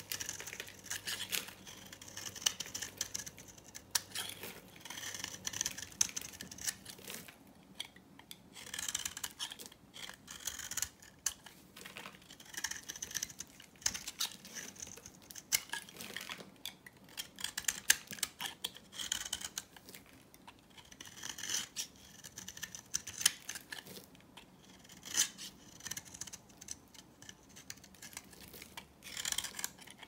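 A knife blade shaving and scraping flakes off a bar of hard, dry soap, which crunches and crackles in quick strokes. The strokes come in runs of a second or two with short pauses between.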